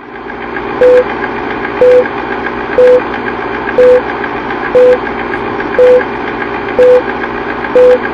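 Old-film countdown sound effect: a steady film-projector rattle with a short beep once a second, eight beeps in all.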